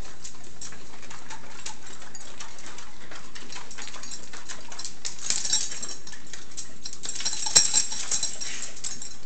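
Labrador retrievers crunching raw Brussels sprouts, with their claws clicking on a tile floor. It is a run of small, irregular clicks that gets busier about five seconds in and again a couple of seconds later, with one sharp click in the middle of that second stretch.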